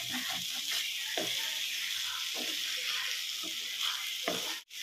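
Raw banana pieces sizzling in a frying pan while a wooden spatula stirs and scrapes them, with a few separate scraping strokes over a steady hiss. The sound drops out for a moment near the end.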